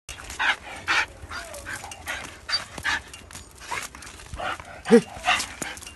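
A dog sniffing and panting in short, irregular breaths, about two a second. One short bark about five seconds in is the loudest sound.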